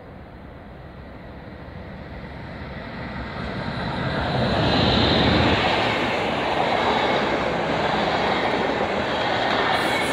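Intercity train, an electric locomotive hauling coaches, arriving at a station platform. The rumble builds as the locomotive approaches and passes about five seconds in, then the coaches keep up a steady rolling noise as they go by.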